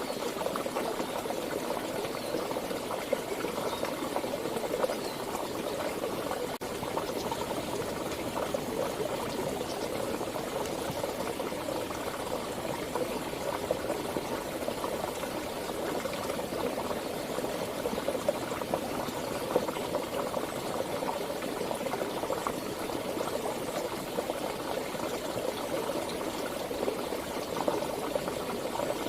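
Stream water flowing and burbling steadily over rocks, an unbroken gurgle with many small splashes.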